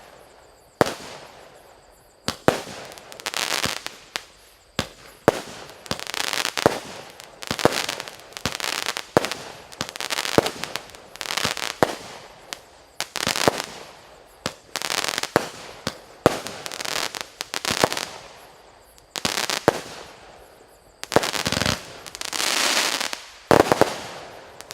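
A 49-shot, 0.8-inch-calibre consumer firework cake firing shot after shot, about one every second or so. Each sharp launch is followed by a noisy burst lasting under a second. The bursts near the end are longer and louder.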